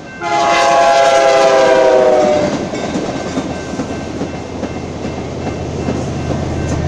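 Amtrak Talgo passenger train passing: the leading diesel locomotive sounds its horn in one long blast of about two seconds, its chord sliding slightly lower as it goes by. The Talgo cars then rumble past on the rails, and the low drone of the trailing locomotive's diesel engine comes in near the end.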